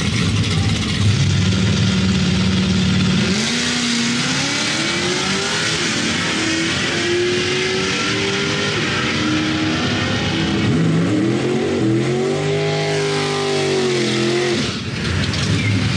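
Drag-racing cars' engines at the strip. One is held at steady revs, then revs climb hard from about three seconds in as it launches, the pitch stepping up through gear changes. Later another engine revs up and holds high revs, rising and falling, through a burnout before dropping back near the end.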